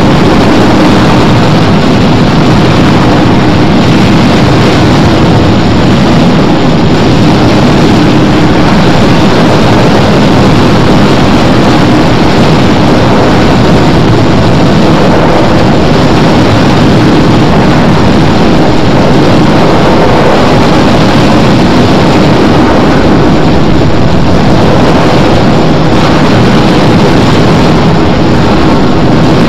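Harsh noise music: a loud, unbroken wall of distorted noise with heavy low rumble, without any clear beat or melody.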